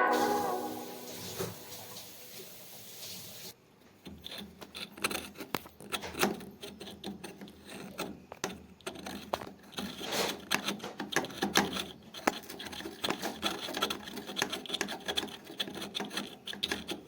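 Background music fading out over the first few seconds, then irregular rubbing, scraping and light clicking from hand work on washing-machine parts.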